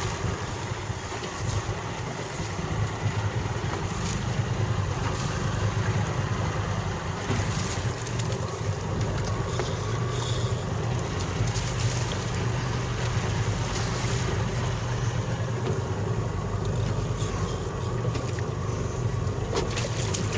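Small boat's engine running steadily, with wind buffeting the microphone and water noise.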